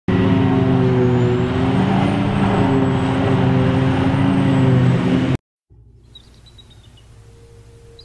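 A large engine running loud and steady, cutting off abruptly after about five seconds. After a brief silence, faint music fades in with a held tone and high chirping notes.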